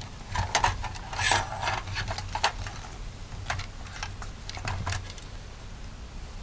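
Small clicks, taps and rattles of wiring and spade connectors being pulled off a window air conditioner's control board and handled along with its fan capacitor. The clicks are dense in the first five seconds and sparse after that.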